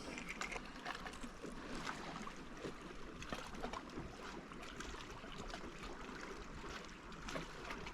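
Faint water lapping against a small boat's hull, with scattered light clicks and knocks.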